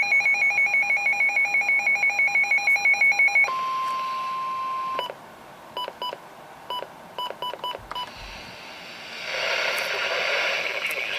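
Emergency alert signal over a weather radio: a rapidly pulsing electronic beep for about three and a half seconds, then a single steady alert tone for about a second and a half, then a few short scattered beeps. Near the end a hissy radio broadcast sound comes up.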